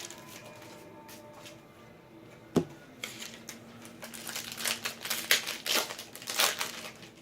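Trading card pack wrappers crinkling and rustling as packs are opened and handled. There is a sharp click a little over two seconds in, and the crinkling gets busier in the second half.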